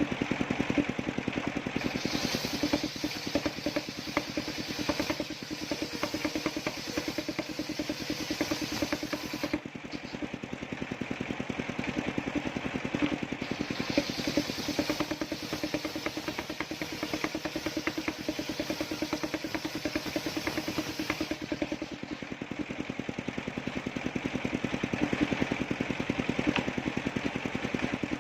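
Engine-driven circular sawmill running steadily, its blade cutting a coconut tree trunk. A high hiss of the cut comes in twice, for about seven seconds each time, with the engine going on alone in between.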